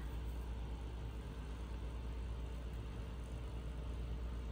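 Steady low hum with a faint even hiss: background room noise, with no distinct sound event.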